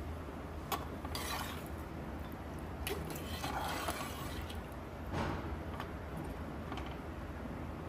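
A perforated metal slotted spoon stirring thin, watery meat curry in a metal pot: liquid sloshing and swishing in a few short strokes, with occasional clinks of the spoon against the pot.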